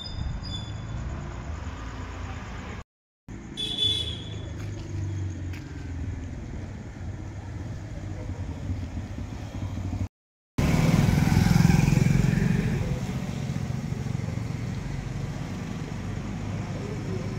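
Street traffic rumbling outdoors, with a vehicle passing close, louder at about ten seconds in and fading away over the next few seconds, and a brief high tone about four seconds in. The sound cuts out completely twice for a moment.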